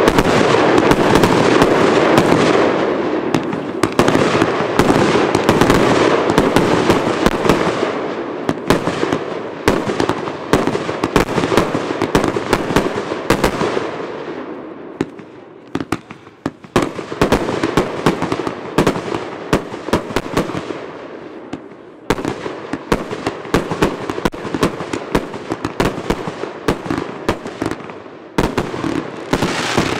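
Two Vulcan Tiger firework cakes firing side by side: a rapid barrage of shots launching and bursting, with dense popping and crackle. The barrage thins out about halfway and again around two-thirds of the way in, each time picking up again with a fresh volley.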